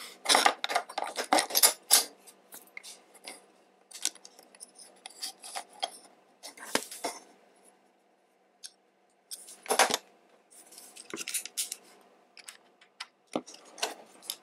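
Small metal and plastic airsoft pistol parts clicking and clinking as the barrel and hop-up unit are handled and fitted into the slide, in scattered clusters with a short pause about halfway through.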